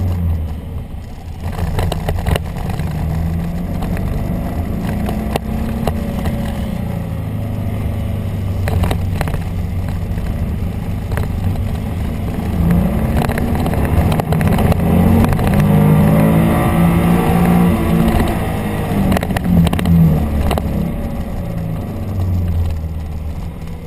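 Motorcycle engine heard from the bike itself, running at speed around a tight track. Its pitch rises and falls with the throttle through the corners, most clearly in the second half.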